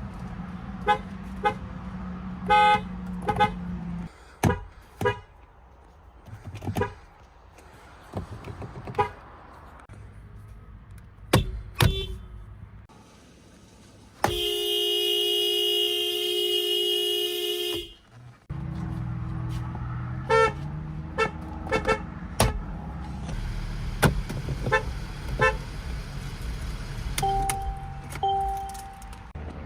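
A run of car horns from different vehicles, mostly short toots and quick double beeps. About fourteen seconds in, one loud horn sounds for about three and a half seconds. A low steady hum runs underneath in places.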